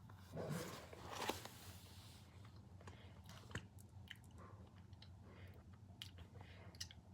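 Mouth sounds of someone biting and eating cotton candy: two soft bites in the first second and a half, then faint, scattered chewing clicks.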